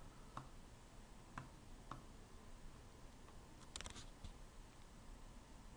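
Near-silent room tone with a few faint, short clicks from a computer mouse and keyboard, including a quick cluster of them about four seconds in.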